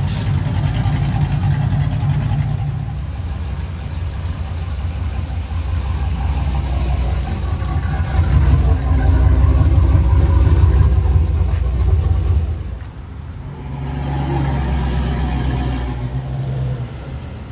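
Engines of lowered pickup trucks running as the trucks cruise slowly past, a steady low-pitched sound. It swells to its loudest in the middle, drops off for a moment about 13 seconds in, then picks up again as another truck goes by.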